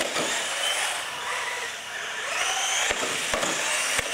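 Electric motors and gears of two radio-controlled scale trucks whining as they race, the pitch rising and falling as they speed up and ease off, with a few short knocks near the end.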